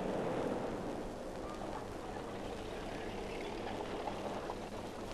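Steady background noise with a low hum underneath and no distinct events.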